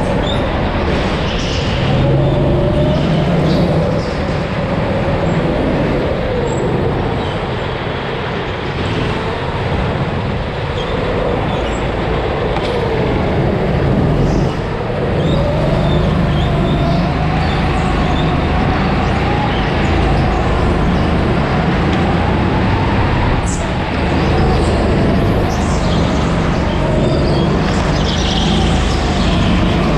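Go-kart engine heard onboard during hot laps. Its pitch climbs and drops back over several seconds at a time as it revs up and eases off, over a steady rush of noise.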